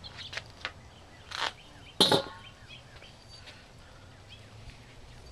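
Metal knocks and clatter from handling the Weber Smokey Mountain smoker's steel lid as it comes off, with a louder clank about two seconds in. Birds chirp faintly in the background.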